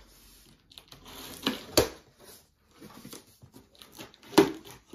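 Scissors cutting through packing tape on a cardboard box, with cardboard and tape rustling and a few sharp snaps, the loudest just under two seconds in and another near the end.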